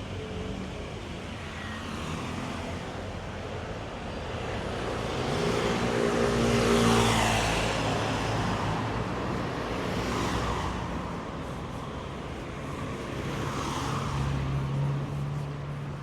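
Motor vehicles passing along a street: engine hum and tyre noise swell as one vehicle goes by about seven seconds in, with smaller passes around ten and fourteen seconds.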